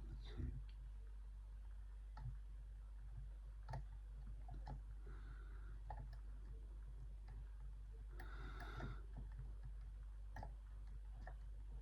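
Faint, irregularly spaced clicks of a disc detainer pick turning the discs inside a K.S. disc detainer padlock, with two brief soft rustles of handling.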